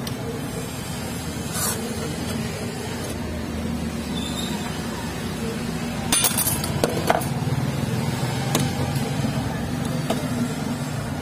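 Scattered metal clicks and knocks as a motorcycle crankshaft and a flat steel tool are handled on steel V-blocks, with a cluster of the sharpest knocks about halfway through, over a steady low hum.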